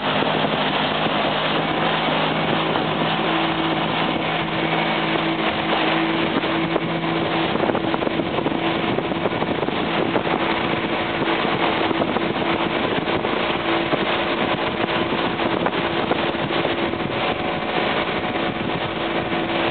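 A speedboat's Enduro two-stroke outboard motor running steadily at speed while towing, a constant engine drone under the rush of the churning wake and wind.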